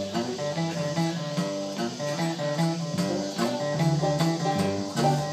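Small string band playing an instrumental intro: acoustic guitar picking over upright bass notes.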